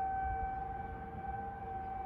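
Federal Signal 2001 outdoor warning sirens sounding a steady alert tone during a siren test, holding one pitch with its overtones.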